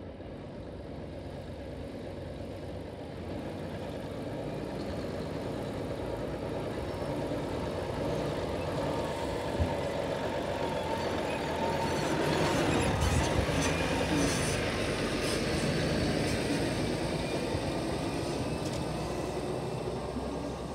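Timber truck's diesel engine running steadily, growing louder towards the middle and easing off again.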